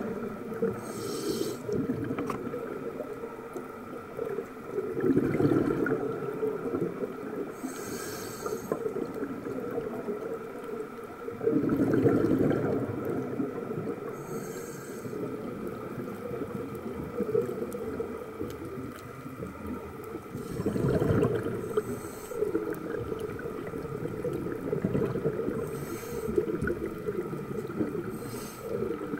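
Scuba regulator breathing heard underwater: short hissing inhalations alternating with louder, low bubbling exhalations, a breath every several seconds.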